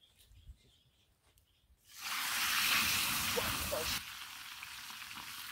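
Fire in a rusty metal drum stove flaring up with a sizzling hiss that starts suddenly about two seconds in, is loudest for a couple of seconds, then drops to a lower steady sizzle.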